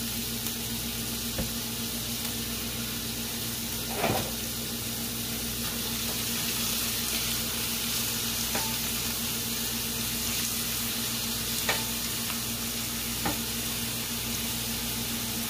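Chopped onions sizzling steadily in olive oil in a stainless-steel frying pan as they sauté. A wooden spatula stirs them, knocking against the pan a few times, loudest about four seconds in, over a steady low hum.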